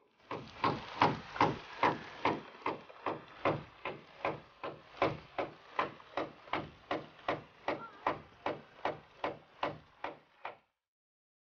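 Even, rhythmic scraping strokes, about two and a half a second, going on for some ten seconds and stopping abruptly near the end.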